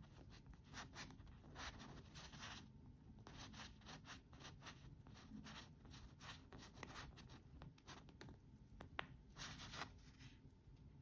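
Faint rubbing and rustling from hands handling a wristwatch on a fabric cushion: short, irregular scratchy strokes, with a single sharp click about nine seconds in.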